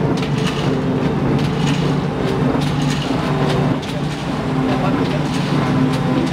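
1989 TMZ E 106 automatic flatbed die-cutting machine running: a steady mechanical hum with a regular clatter repeating about once a second as it cycles.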